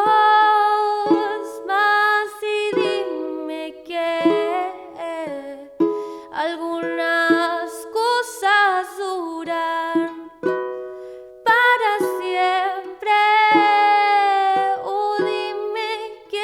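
Live song: a ukulele strummed and plucked, with a wordless sung melody over it that slides and wavers in pitch.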